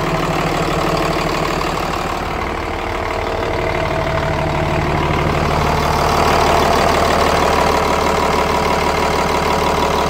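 Cummins ISB turbodiesel engine in a school bus idling steadily, running on a swapped-in donor ECM after a crank-no-start caused by a failed ECM. It sounds great, with a smooth, even idle.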